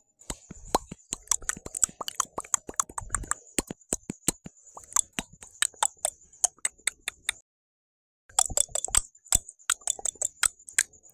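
Mouth sounds: quick, irregular clicks and pops made with the lips and tongue, several a second, breaking off into total silence for about a second a little past the middle.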